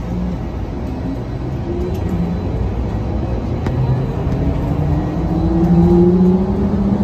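Skylink automated people mover (Bombardier Innovia APM 200) accelerating, heard from inside the car: the drive whine rises steadily in pitch and grows louder as the train gathers speed.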